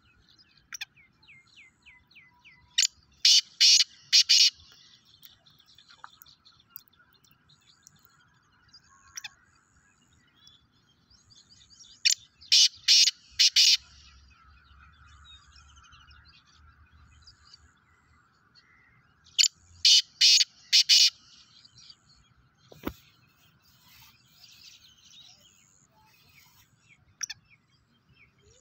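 Male black francolin calling: three loud bursts of harsh, grating notes, each a quick run of four or five notes, about a third of the way in, near the middle and about two-thirds in. Faint bird chirps fill the gaps between bursts.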